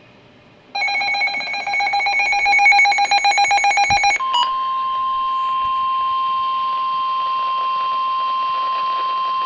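Weather alert tones: a rapidly pulsing electronic beep for about three seconds, then a steady single-pitched warning alarm tone, the 1050 Hz NOAA Weather Radio attention tone that comes before a severe thunderstorm warning is read.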